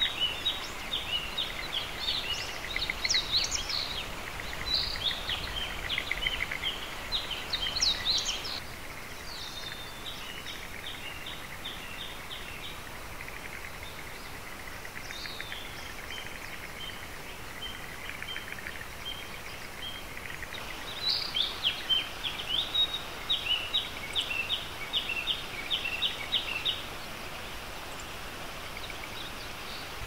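A small bird singing phrases of quick, repeated high notes over a steady outdoor hiss. The song comes in a long stretch at first, briefly again midway, and in another long stretch near the end.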